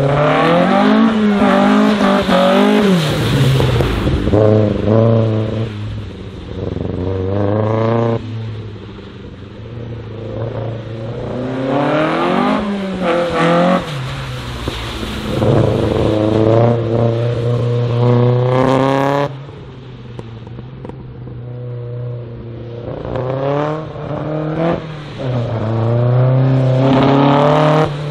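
Mk1 Volkswagen Golf slalom car's four-cylinder engine revving hard. It climbs in pitch under full throttle, then drops as the driver lifts off or shifts, again and again through the run.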